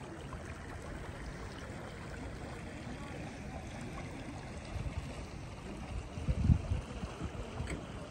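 Shallow stream running over stones, a steady rush of water. Gusts of wind buffet the microphone in the second half, the strongest about six and a half seconds in.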